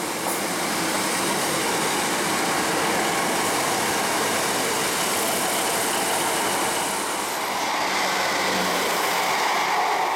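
Class 150 Sprinter diesel multiple unit running into the station alongside the platform: a steady, loud mix of diesel engine and wheels rolling on the rails as the coaches pass close by.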